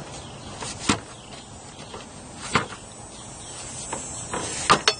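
A few light clicks and knocks as the engine-driven cooling fan and fan clutch are handled and fitted onto the water pump pulley: one about a second in, another midway, and a quick cluster near the end, over a faint steady background.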